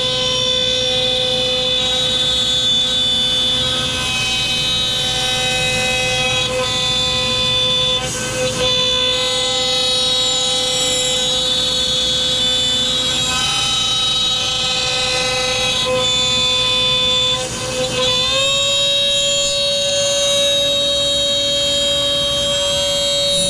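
CNC router spindle running at high speed with its bit cutting ash wood, a loud steady whine. The level dips briefly twice, and at about three-quarters of the way through the pitch steps up slightly and holds.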